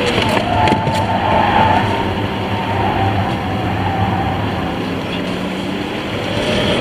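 Car engine and road noise heard from inside the cabin while lapping a race circuit at speed: a steady loud drone with the engine note wavering slightly.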